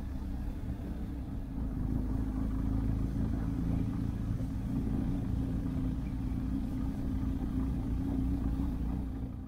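Motorcycle engine running steadily while riding, a low even drone with wind and road noise over it, growing a little louder about two seconds in.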